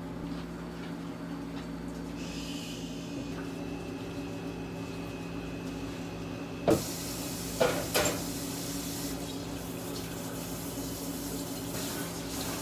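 Cafe background: a steady low hum, then about halfway a hiss like running water starts suddenly and continues, with a few sharp knocks just after it begins.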